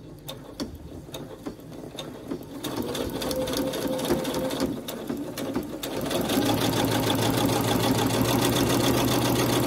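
Domestic electric sewing machine stitching a seam through two layers of fabric. It starts slowly with separate stitch clicks, speeds up and grows louder a few seconds in, then runs steadily fast in the second half.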